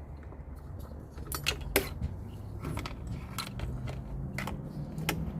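Small metal parts and hand tools clinking and clicking in a series of sharp separate clicks, with a low steady hum coming in about three seconds in.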